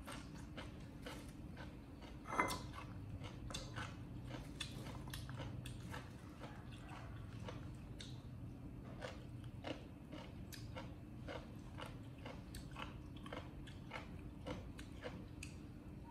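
A baby monkey chewing and crunching food: a run of small crisp clicks and smacks, several a second, with one sharper knock about two and a half seconds in, over a steady low hum.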